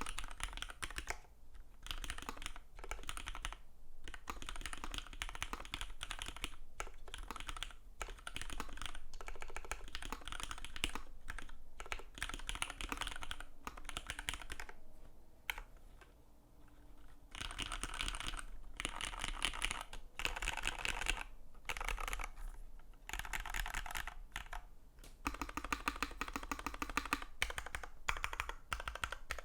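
Fast typing on a Matrix 2.0 Add xmas custom mechanical keyboard with lubed Cherry Hyperglide Black linear switches on an aluminium plate: a dense run of keystroke clicks that eases off briefly about halfway through.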